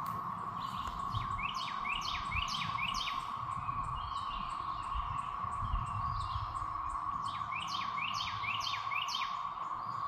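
Steady drone of a periodical cicada chorus: 13-year cicadas of the Great Southern Brood in the treetops. A songbird sings a quick run of repeated sweeping notes over it twice, in the first few seconds and again near the end.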